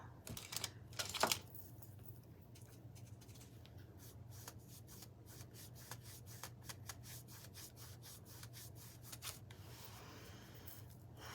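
Faint scratchy strokes and light ticks of a small paintbrush working paint onto a craft piece, over a steady low hum.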